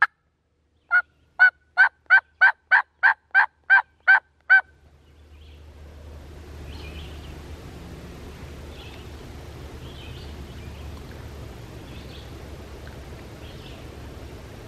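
Wild turkey yelping: a run of about eleven evenly spaced yelps, roughly three a second, that stops about four and a half seconds in. Faint outdoor ambience with distant small-bird chirps follows.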